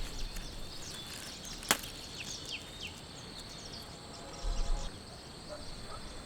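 Outdoor nature ambience: a steady high insect trill with short falling bird chirps, mostly in the first half. There is one sharp click a little under two seconds in and a brief low rumble about halfway through.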